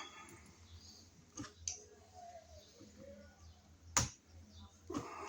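Sharp clicks and taps from handling the wires and the twisted-on plastic wire nut in an outlet box. There are a few scattered clicks, the loudest about four seconds in.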